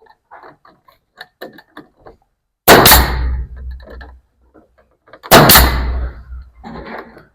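Nail gun firing twice into wooden wall boards, about two and a half seconds apart. Each shot is a loud sharp crack with a deep ring-out through the wall. Quieter knocks and taps of boards being handled come around them.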